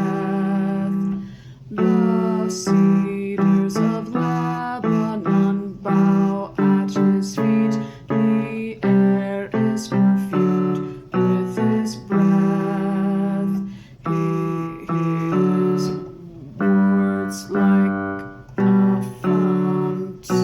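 Male voice singing a slow hymn's tenor line over piano, note by note, each note swelling and fading.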